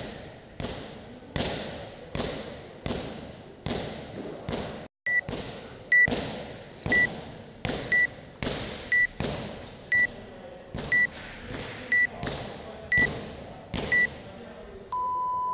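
Workout interval timer counting down to the start: about ten short high beeps, one a second, from about five seconds in, then one long lower start tone near the end. Under it, an echoing thump repeats steadily about every three quarters of a second.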